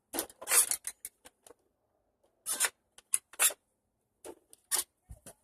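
Handling noise of a plastic Nerf blaster being stowed in a backpack: short scrapes and rustles in three bunches, with a low thump near the end.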